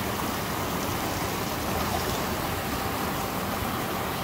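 Small rock waterfall splashing steadily into a shallow pool, an even rushing wash of water with no breaks.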